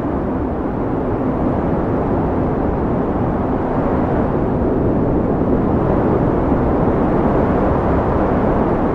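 Blizzard wind: a steady, low rushing gust noise that swells slightly about halfway through.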